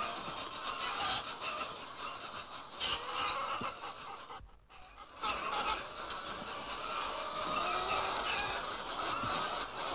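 A large flock of white chickens clucking and chattering all at once, many overlapping calls, with a brief dip in level about halfway through.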